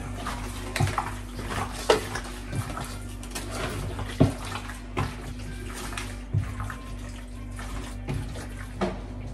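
Wet sloshing kitchen sounds with irregular clicks and knocks of utensils on dishes, over a steady low hum.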